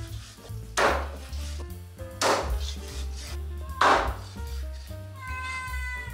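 Chicken thighs being chopped with a heavy knife on a cutting board: three hard chops about a second and a half apart, the last the loudest, over background music.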